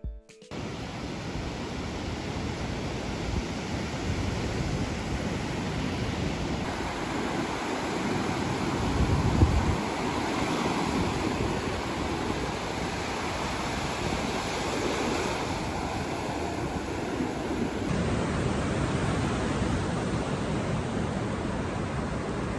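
Surf breaking and washing up a sandy beach in a steady rush, with wind buffeting the phone microphone, hardest about nine seconds in.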